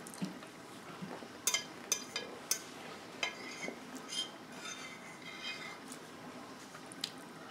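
Metal fork clinking and scraping against a plate while picking up salad. There is a quick run of sharp clinks between about one and a half and two and a half seconds in, then lighter taps and scrapes.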